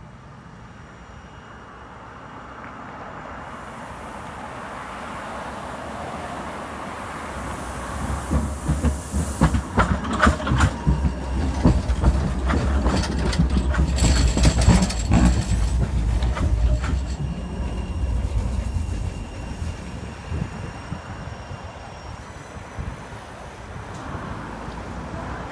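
Class 399 Citylink tram-train approaching and passing close by: its rumble builds over several seconds, is loudest with a run of sharp clicks and knocks from the wheels on the track as it goes past, then fades.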